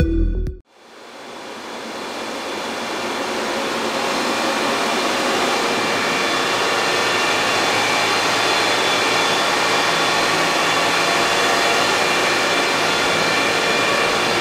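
Cooling fans of a GPU mining rig running at high speed: a loud, steady whoosh with faint fan tones. It grows louder over the first few seconds, then holds even.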